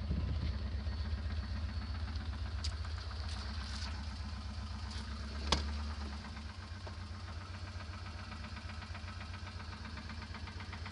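Fiat Croma engine running with a knock (стук), a little above idle at first and settling to idle about six seconds in, with a fast regular ticking over the engine note and one sharp click a little past halfway.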